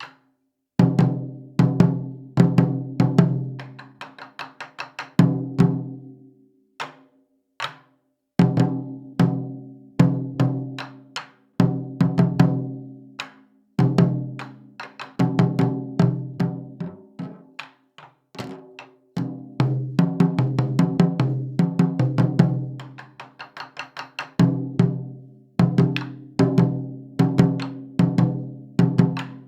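Taiko drums played in fast rhythmic phrases: deep strikes that ring on and fade, mixed with sharp clicking strikes, with short pauses between phrases.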